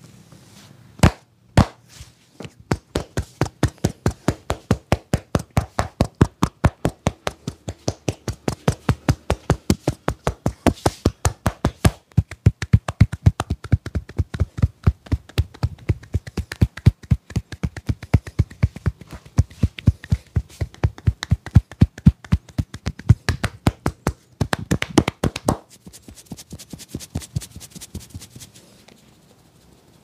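A barber's hands striking a man's head in a fast, even run of percussive taps during an Indian head massage, several a second, after two single taps near the start. Near the end the tapping stops and gives way to a softer rustling of fingers rubbing through the hair.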